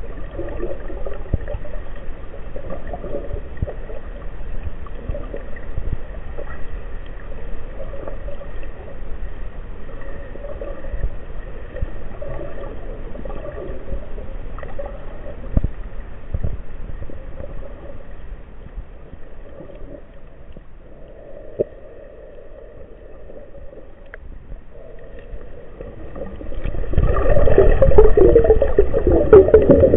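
Water sloshing and gurgling around an underwater camera on a spearfishing dive. It gets suddenly much louder and rougher about three seconds before the end.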